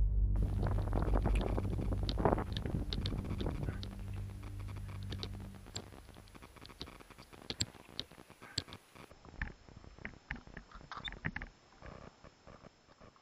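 Background music fading out over the first five or six seconds. After that come scattered scrapes and sharp clicks from a climber moving on a via ferrata: boots and gloves on rock, and carabiners knocking on the steel safety cable.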